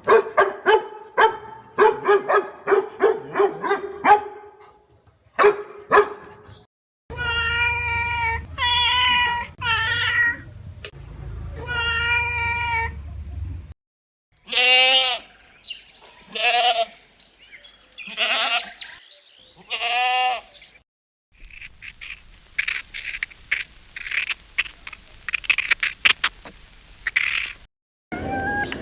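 A run of animal calls in four parts. First, short repeated dog yelps, about two a second. Then a cat meowing several times over a low hum, then a goat bleating in wavering calls, and last, short noisy calls from banded mongooses.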